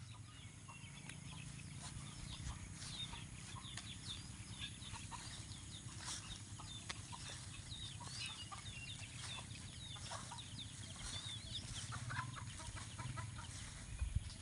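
Chickens and chicks: many short, high peeps and chirps, over a low steady rumble.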